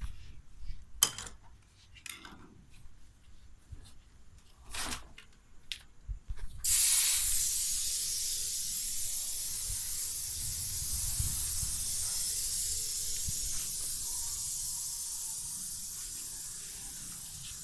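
A few scattered clicks, then a TCL inverter air conditioner's indoor unit starts blowing air: a steady hiss that comes on suddenly about six and a half seconds in and slowly fades.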